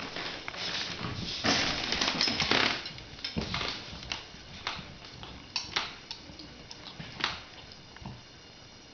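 Dog scrabbling at and mouthing a toy basketball on a fleece blanket in a wire crate: busy rustling and scratching for the first few seconds, then a few sharp clicks and clinks as it settles to chew the ball.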